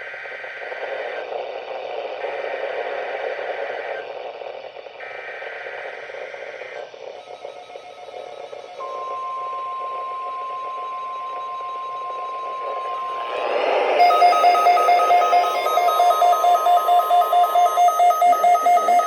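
NOAA Weather Radio weekly test alert over a weather radio receiver: three short bursts of the screechy digital SAME header tones, then about 9 s in the steady single-pitch 1050 Hz warning alarm tone. About 14 s in a louder pulsing beep, about four a second, starts over the tone: the receiver's alarm being set off.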